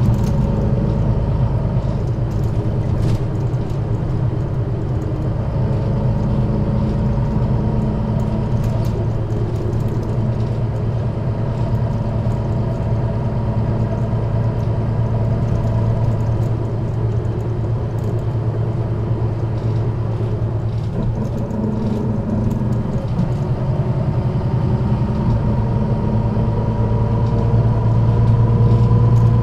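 Six-cylinder diesel engine of a 1998 MAN NG 313 articulated bus running under way, with a steady whine above the engine note. The engine picks up and gets louder near the end.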